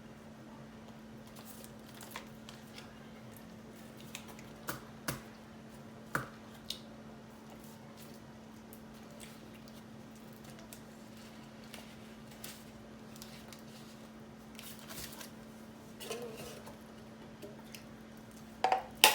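Quiet eating sounds: soft, wet squishing from chicken nuggets being chewed and dipped in sauce, with scattered light clicks and taps from food and packaging being handled, over a steady low hum.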